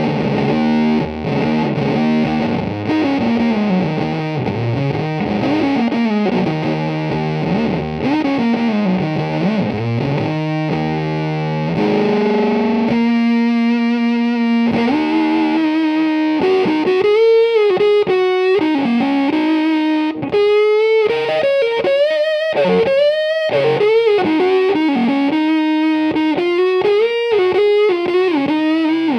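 Electric guitar played through the T-Lab Coughing Cat, a handmade silicon fuzz pedal, giving a heavily distorted tone. A riff with sliding notes gives way to a few held notes a little before halfway. The second half is bent, wavering notes in short phrases with brief gaps between them.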